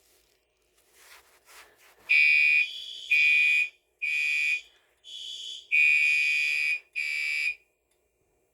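Electronic fire alarm sounder set off in a system test, going off about two seconds in. It sounds in loud pulses of a high tone that switches between two pitches, then stops shortly before the end. A few faint clicks come before it.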